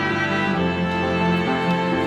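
Background music led by sustained bowed strings, with a change of chord about half a second in.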